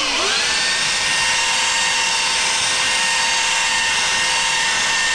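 Electric sanding tool's motor switched on, spinning up with a rising whine over the first half second, then running steadily at full speed while sanding wood to round off its corners.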